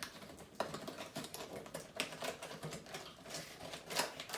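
Toy packaging being handled and opened by hand: irregular clicks, taps and rustles of cardboard and plastic, with sharper clicks about half a second in, near two seconds in, and near the end.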